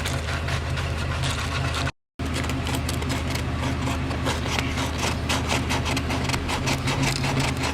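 A steady low machine hum under many small clicks and rattles of tools and parts being handled; the sound cuts out completely for a moment about two seconds in.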